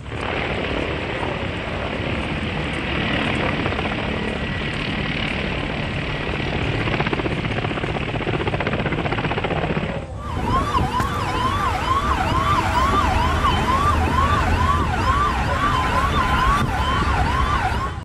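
Helicopter engine and rotor noise for about ten seconds, then a sudden change to a siren wailing up and down about twice a second.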